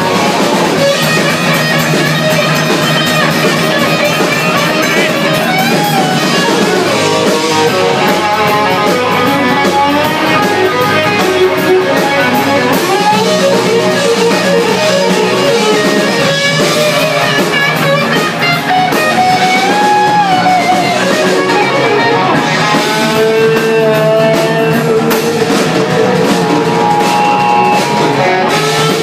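Live rock band playing loudly in an instrumental passage: electric guitar lead lines with held notes and pitch bends over bass and drums.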